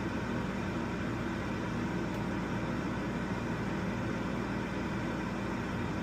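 RV air conditioner running with a steady, even hum, just started without a soft start and drawing about 1,200 watts.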